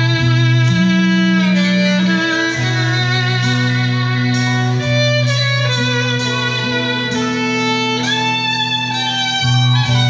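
Violin solo at a heavy metal concert: the violin plays a melody of held notes over sustained low accompaniment notes from the band.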